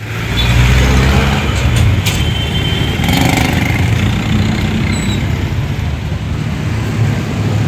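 Street traffic with diesel jeepney and motor-tricycle engines running close by: a steady low rumble.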